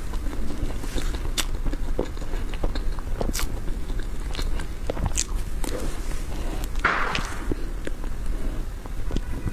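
Close-miked eating of soft whipped-cream sponge cake: scattered wet mouth smacks and clicks as the cream is taken off the spoon and chewed, with a short breathy sound about seven seconds in.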